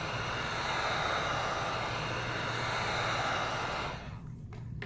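Electric heat gun blowing steadily with a low motor hum, heating the phone's edges to soften the screen adhesive; it stops abruptly about four seconds in, and a single click follows near the end.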